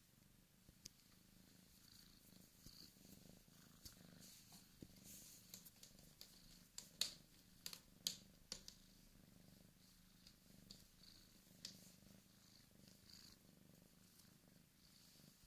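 Bengal kitten purring quietly and steadily while being stroked, with a handful of sharp clicks and rustles from handling around the middle.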